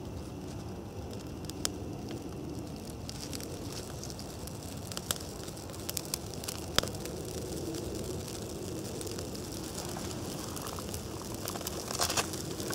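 Freshly lit kindling of birch bark, dry grass and spruce boughs catching fire and crackling. Sharp pops come about a second and a half in, then around five and seven seconds, with a quick flurry of crackles near the end.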